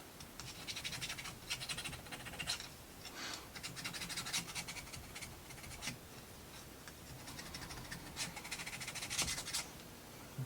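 Scratchy rubbing of plywood model parts, in about five bursts of quick fine strokes, each about a second long.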